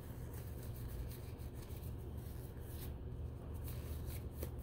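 Faint rubbing and crinkling of disposable exam gloves as they are pulled onto the hands and worked over the fingers, with a few light crackles. A steady low hum sits underneath.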